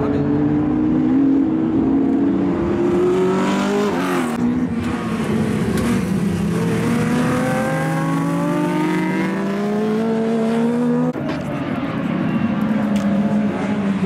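Classic racing car engines at full throttle, climbing in pitch as they accelerate and dropping sharply at the gear changes, about 4 and 11 seconds in.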